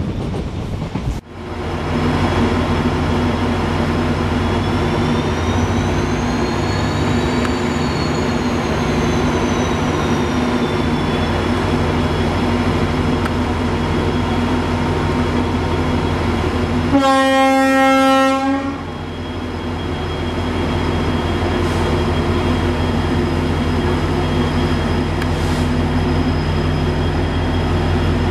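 Diesel locomotive running with a steady low engine drone, over which a faint high whine rises and falls. About two thirds of the way through, a train horn sounds once for about a second and a half.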